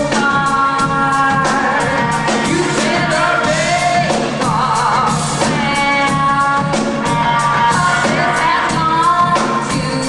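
Live rock band performing: a woman singing lead over electric guitar and a drum kit keeping a steady beat, with a held, wavering vocal note about halfway through.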